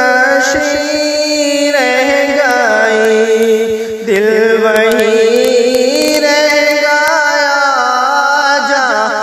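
A man singing a naat, an Urdu devotional poem, in drawn-out melismatic notes whose pitch wavers and glides, over a steady held drone. The singing breaks off briefly about four seconds in, then goes on.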